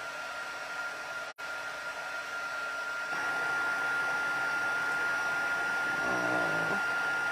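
Hot-air heat embossing tool running on its high setting, blowing onto cardstock to melt embossing powder: a steady blowing hiss with a steady high whine. It grows louder about three seconds in and cuts out for an instant a little over a second in.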